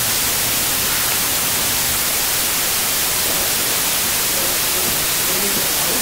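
Loud, steady white noise: an even hiss across all pitches. Faint voices come through beneath it near the end.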